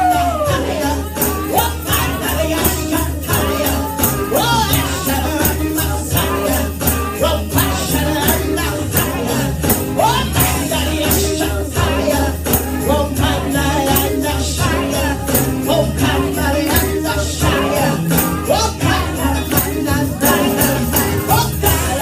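Live church praise music: voices singing over a band with a strong bass and a steady beat, with jingling hand percussion on the beat.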